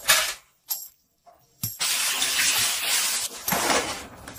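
A short clink at the start, then from about a second and a half in, a steady stream of liquid poured into a glass tumbler, splashing onto syrup and filling the glass.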